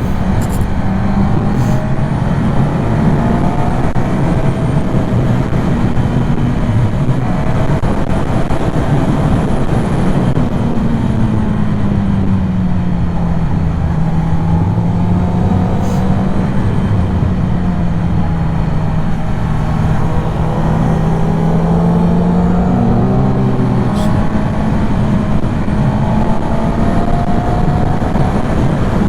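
Motorcycle engine running at road speed under heavy wind rush on the microphone. The engine note sinks about ten seconds in, holds lower for several seconds, and shifts again a little after twenty seconds.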